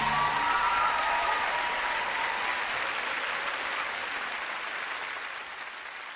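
Audience applause, as at the close of a live song recording, fading out steadily. The last notes of the music die away in the first second or so.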